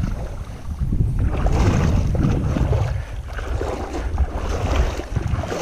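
Wind buffeting the microphone in a strong, uneven low rumble, with water sloshing and splashing around the wader.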